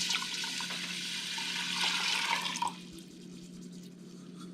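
Water pouring into a container, a steady rush that stops abruptly a little over halfway through.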